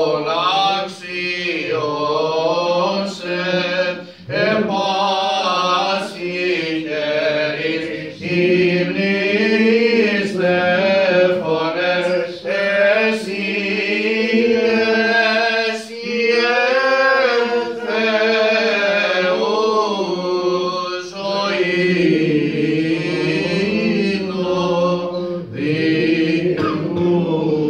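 Byzantine chant of an Orthodox vespers service: a slow, drawn-out, ornamented melody sung over a steady held low note (the ison drone), with short breaks every few seconds.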